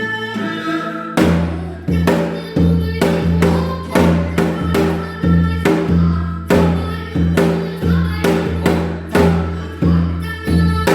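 Korean janggu drum playing a fast jajinmori rhythm over a melody, its deep low strokes and sharp stick strikes starting about a second in and repeating in a steady, driving pulse.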